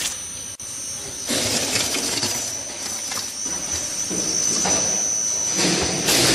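Squeeze-type hose pump running as it transfers thick kimchi seasoning paste. Its steady mechanical running noise carries a constant high whine and gets louder about a second in.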